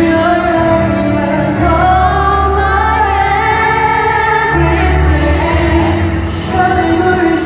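A male singer singing live into a microphone over backing music, loud through a concert sound system, with long held notes. Deep bass notes come in under the voice about a second and a half in.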